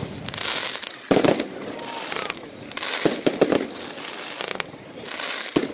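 Aerial fireworks firing and bursting: sharp bangs with a trailing echo about a second in, several in quick succession around three seconds, and another near the end.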